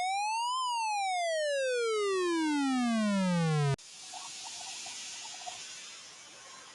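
Synthesized siren tone in a mock emergency alert: one buzzy tone that rises in pitch until about half a second in, then slides steadily down and cuts off suddenly near the middle, leaving only a faint hiss.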